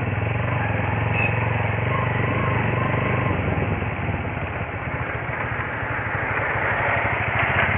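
A small engine running steadily at low revs, with a fine even pulsing, under a rushing noise.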